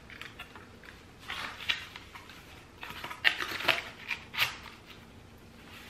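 Thin cardboard divider strips being slotted together by their grooves: several short scrapes and rustles of card sliding against card.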